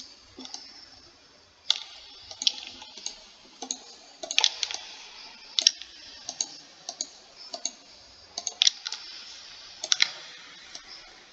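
Computer mouse clicks and keyboard key presses while operating 3D modeling software: irregular sharp clicks, one or two a second, some in quick pairs.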